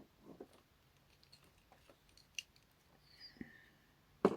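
Scattered small plastic clicks and taps from handling a Transformers action figure, its chest opened to show the matrix chamber, with a louder click near the end.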